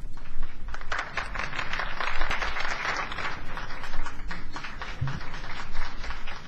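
Audience applauding, swelling over the first couple of seconds and then thinning out, with a brief low plucked note about five seconds in.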